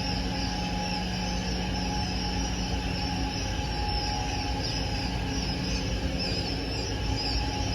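A crowd of newly hatched Japanese quail chicks peeping continuously, many short high chirps overlapping, over the steady hum of a machine.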